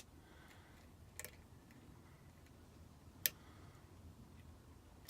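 Small metal clicks of a fine lock pick working pin 6 of a six-pin GEGE pin-tumbler cylinder under light tension. There are a few quiet ticks, the sharpest a little over three seconds in.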